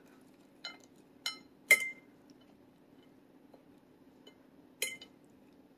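Metal knife and fork clinking against a ceramic dinner plate while cutting food. Three quick clinks come in the first two seconds, the third the loudest, and one more comes near the end, each ringing briefly. A faint steady hum runs underneath.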